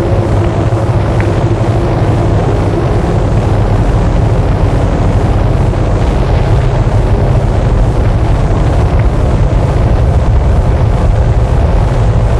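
Noise music: a loud, dense, unchanging wall of noise with most of its weight in a deep rumble.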